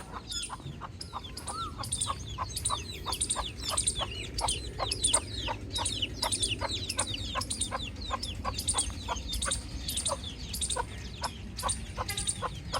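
Baby chicks peeping, many quick high chirps that fall in pitch, overlapping without pause. Under them a short, lower sound repeats steadily, about three times a second.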